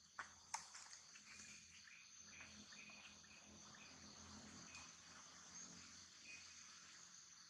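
Faint outdoor insect chorus: a steady high-pitched hiss with many short chirps scattered through it. Two sharp clicks come in the first second.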